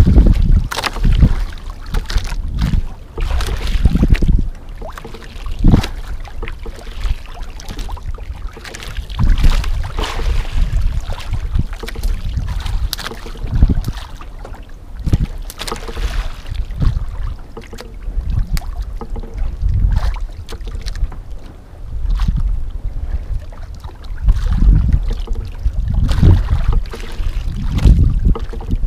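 Wind buffeting the microphone in uneven gusts, with sea water lapping and splashing against an outrigger boat's hull and floats.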